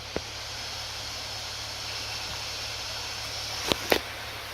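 Acer Predator Helios 300 laptop's cooling fans running at full speed in turbo mode, a steady airy whoosh: the normal sound of turbo, with the annoying fan noise gone after greasing. Two sharp clicks come close together near the end.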